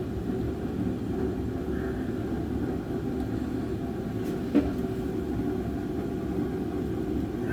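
Steady low machine rumble, with one short sharp knock a little past halfway.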